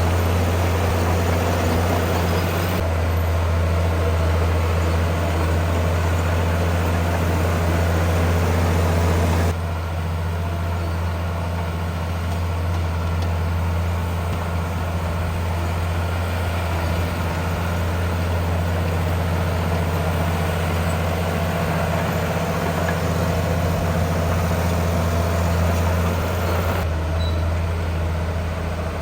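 Heavy diesel engines of earthmoving machinery running steadily with a deep, low hum. The sound shifts abruptly about three seconds in, again about ten seconds in, and near the end.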